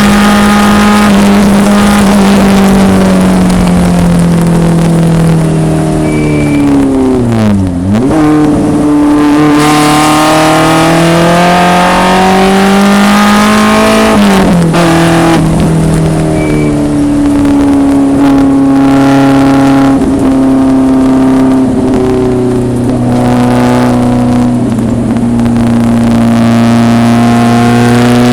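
1974 BMW 2002 race car's four-cylinder engine driven hard on track. The revs fall for several seconds, dip sharply and recover about eight seconds in, climb again, then drop suddenly at a gear change about fourteen seconds in before holding high and rising slowly.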